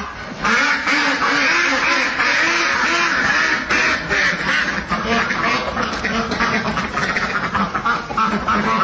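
A flock of domestic ducks quacking, many calls overlapping into a continuous loud chorus that starts about half a second in.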